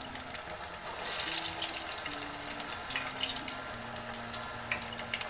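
Freshly added veg Manchurian balls frying in a stainless steel pot of hot oil: a steady sizzle full of quick crackles and pops, louder from about a second in.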